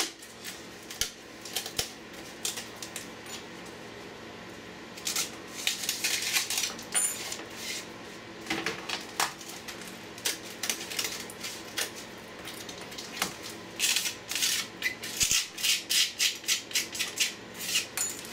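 Irregular clicking and crackling of hard plastic as a 3D-printed ABS mould is worked apart by hand. There are quick runs of clicks about five seconds in and again from about fourteen seconds on.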